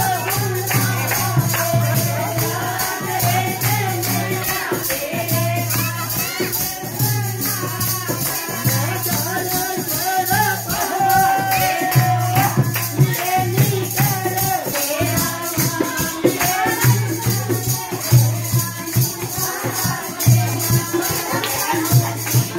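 Live Pahari devotional bhajan: a group singing over a steady dholak-style drum beat and jingling, rattling hand percussion.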